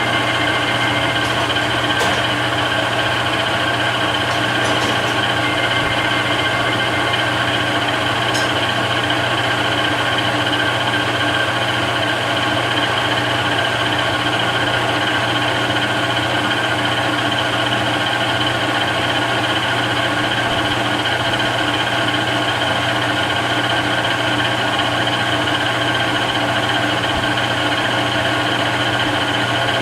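Webb Whacheon WL435 metal lathe running steadily, a constant machine hum with a whine from the headstock gearing, and a few faint ticks in the first third.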